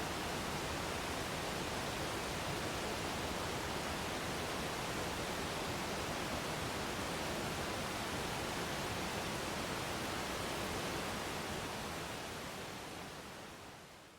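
Steady, even rush of a waterfall, fading out over the last couple of seconds.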